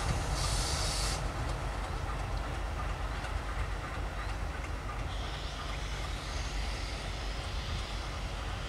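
Alco WDM-class diesel locomotive running slowly with a steady low engine rumble. A sharp hiss of air fades out about a second in.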